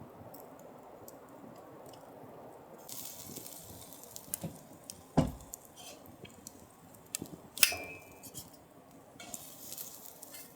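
Dishes and cutlery being handled: a few sharp clinks and knocks, one about two thirds of the way through ringing briefly like metal, with two stretches of soft hissing.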